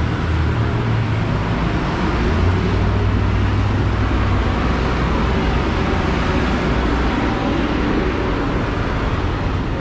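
Busy road traffic: a steady, loud wash of vehicle noise with a low engine rumble underneath.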